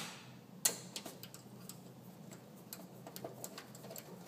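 Screwdriver turning a screw into a sound card's metal bracket on a PC case, giving a sharp click about half a second in and then a run of small irregular metallic ticks.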